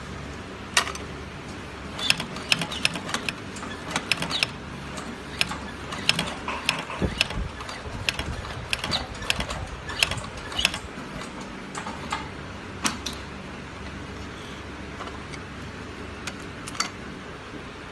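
Heavy-duty shoe sole stitching machine running, its needle mechanism clacking in quick irregular clusters of sharp clicks over a steady low hum. The clicks thin out to a few near the end.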